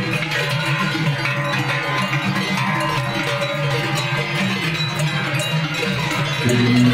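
Many cowbells on a grazing herd of Brown Swiss cattle ringing together in a dense, overlapping jangle. A deeper, steadier bell tone comes in near the end.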